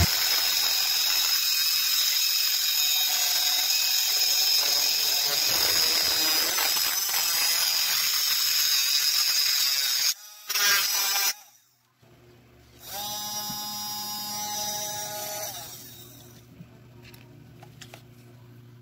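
Homemade mini grinder, driven by a 12 V car power-window motor, grinding a steel rod with an abrasive disc: a steady high-pitched grinding hiss for about ten seconds that then cuts off. After a short gap a quieter steady whine runs for a couple of seconds and fades.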